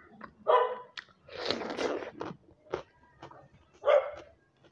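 A dog barking in three short bursts, with close chewing and crunching of food in between.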